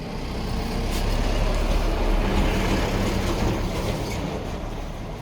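A motor vehicle driving past, its low engine hum swelling to a peak about two seconds in and then fading.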